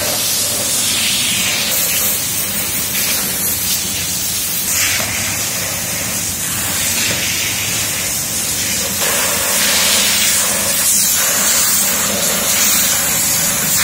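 Pressure washer's high-pressure water jet spraying onto motocross boots: a steady, loud hiss of water with a low hum beneath.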